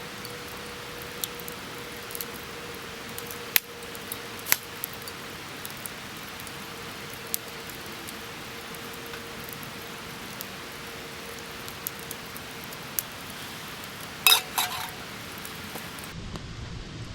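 Wood fire crackling in a thin-steel fire pit: a steady hiss with scattered sharp pops, and a quick run of metallic clinks about 14 seconds in.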